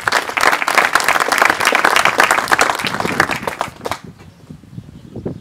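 An audience applauding, dense clapping that stops abruptly about four seconds in.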